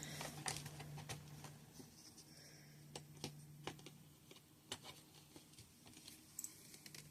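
Faint scattered clicks and light taps of small plastic doll accessories being handled, over a faint low hum.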